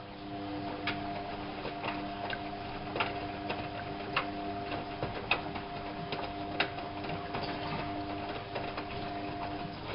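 Whirlpool AWO 5346 washing machine's drum motor turning the drum with a steady hum and irregular clicks and knocks from the tumbling load. The hum stops shortly before the end.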